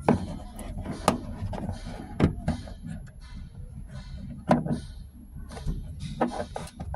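Irregular knocks, clicks and rustling of hands working on a car's interior plastic trim and dash-cam wiring, with the sharpest knocks at the start, about a second in, around two seconds and about four and a half seconds in.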